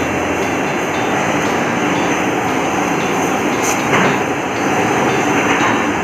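Heavy-duty industrial vacuum cleaner running with a loud, steady rush of suction as its nozzle is worked along the floor, with a brief sharper burst of noise about four seconds in.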